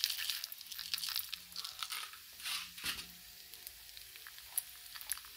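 Mustard seeds popping and crackling in hot oil in a small stainless steel pan with dried red chillies, as urad dal is tipped in at the start. Irregular sharp pops scattered throughout.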